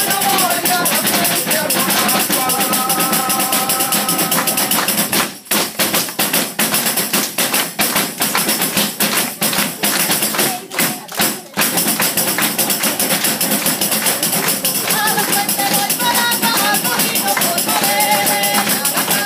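Galician pandeireta, a frame tambourine with metal jingles, played in a steady rhythm of shakes and strikes. A voice sings over it at the start and again near the end, while in the middle the jingles come in separate strokes with short breaks.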